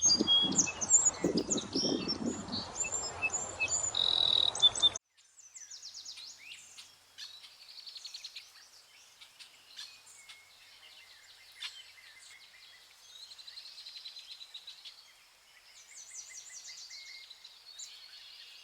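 Small birds chirping and calling. About five seconds in, the sound drops abruptly to a quieter stretch of many faint chirps.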